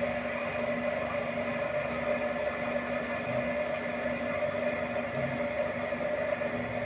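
Spinning potter's wheel running with a steady mechanical hum and whine while wet clay is shaped on it.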